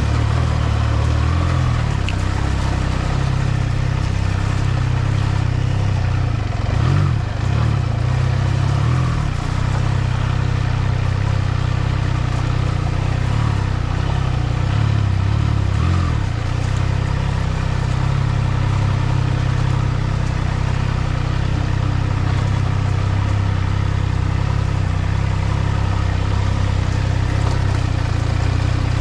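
Triumph Trident 660's three-cylinder engine running steadily as the motorcycle is ridden, with brief changes in engine pitch about seven and sixteen seconds in.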